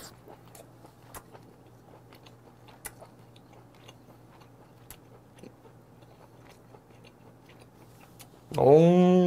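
A person chewing a mouthful of steamed king crab meat with the mouth closed, faint small wet clicks from the mouth. Near the end comes a loud hummed 'mmm' of relish, its pitch rising and then falling.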